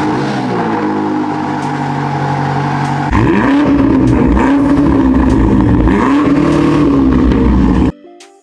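BMW M8 Competition's 4.4-litre twin-turbo V8 exhaust, just after a cold start, running at a fast idle whose pitch eases slightly down. About three seconds in it becomes louder and is revved up and back down about three times, then cuts off suddenly near the end.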